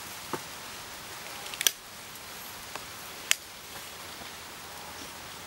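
A steady hiss with a few sharp clicks: a double click about one and a half seconds in and a single loud click a couple of seconds later, plus two fainter ones.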